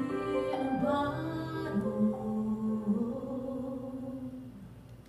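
A woman singing the closing held notes of a cabaret song over electric keyboard accompaniment. The last long note fades out over the final second or two.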